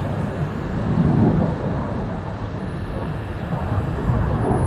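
Aircraft engine noise overhead: a steady rumble that swells a little and eases off.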